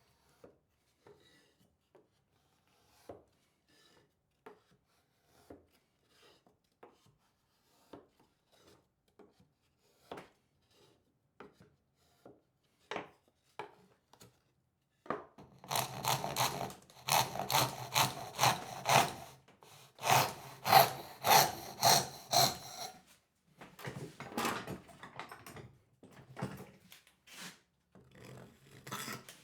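A hand tool working wood. First come sparse faint taps and small knocks, then from about halfway quick, rasping back-and-forth strokes in runs, with short pauses between them.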